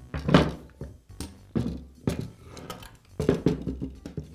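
A hammer tapping a steel pin punch to drive a roll pin into the nose piece of a Senco stapler: a series of short, light metallic taps, each ringing briefly.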